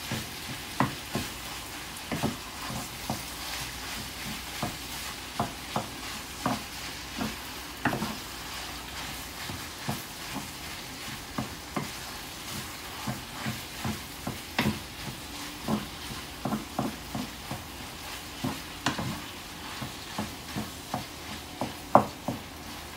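Minced pork with chilli paste sizzling as it stir-fries in a frying pan, a wooden spatula stirring it and knocking and scraping against the pan about once or twice a second.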